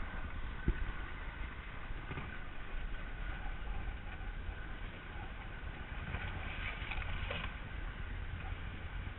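Steady wind and water noise aboard a small trimaran underway, with a single knock just under a second in.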